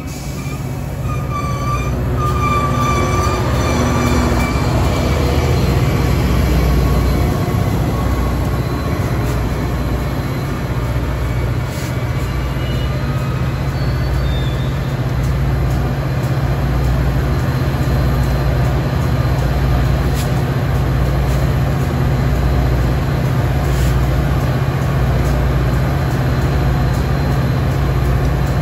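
Metra commuter train of bilevel coaches slowing at the platform, with a squeal in a few high tones over the first few seconds. Under it a steady low drone from the EMD F40PH diesel locomotive builds and then holds evenly.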